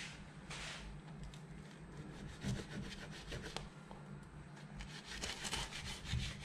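Knife sawing slowly through the crisp, flaky puff-pastry crust of a baked galette des rois, giving faint, irregular crackling and rubbing, with the blade scraping on a wooden cutting board.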